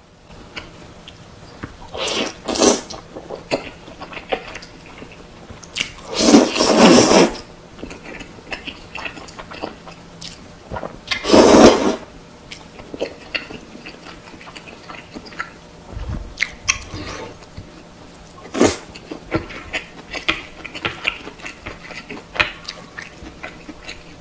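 Close-miked eating of cheese-topped tteokbokki: wet chewing and mouth sounds, with two loud slurps about six and eleven seconds in.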